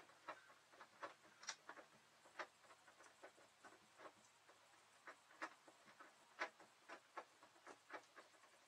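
Faint, irregular clicks, one or two a second, from a hand screwdriver turning screws out of an RV window blind's valance.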